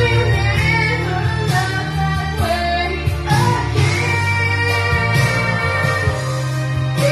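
A woman singing into a microphone over accompanying music with a steady low bass.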